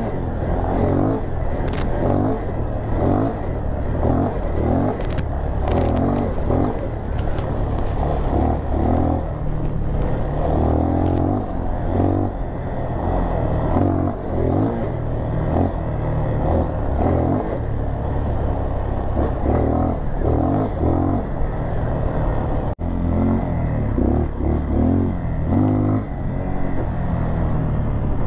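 Dirt bike engine running while riding over sandy trail, its note rising and falling with the throttle, with wind buffeting the microphone. A few sharp clicks in the first half, and a brief break in the sound about 23 seconds in.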